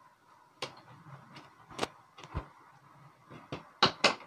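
Small sharp clicks and taps from a precision screwdriver and the bare metal chassis of a Sony A7 II camera being handled on a work mat. The clicks come every half second to a second, with the two loudest close together near the end.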